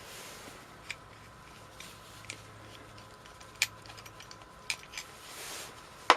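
Scattered sharp clicks and clinks of small hand tools and metal carburetor parts being handled during the disassembly of a Honda Goldwing GL1100 carburetor bank, with a couple of soft rustling stretches between them; the loudest click comes right at the end.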